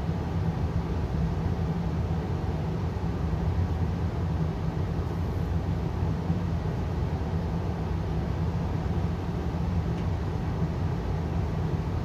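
Payne gas furnace running steadily: an even low rumble with a hum, without change.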